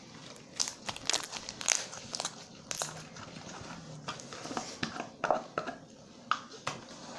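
Glitter slime being squished and stretched in the hands, making irregular wet clicks and pops.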